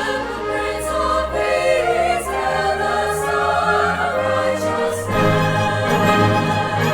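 Symphony orchestra and choir performing holiday music, with sustained chords and a fuller bass coming in about five seconds in.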